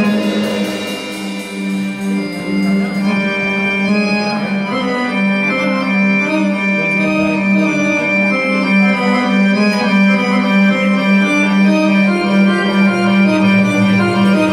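Live Arabic music: an electronic keyboard improvising a slow taqsim melody over a steady held drone note.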